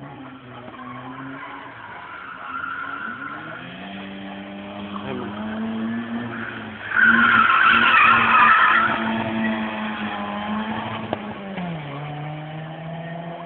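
Drift car's engine revving up and holding high revs while the tyres squeal loudly for about two seconds, about halfway through, as the car slides. The revs drop near the end.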